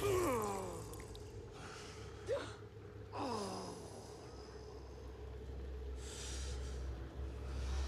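A man gasping and breathing hard: a falling, pitched breath at the start and another about three seconds in, a short rising gasp between, and breathy puffs, over a low steady hum.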